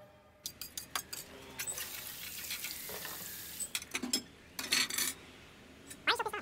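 Kitchen sounds: dishes and cutlery clinking and knocking, with a steady sizzling hiss in the middle.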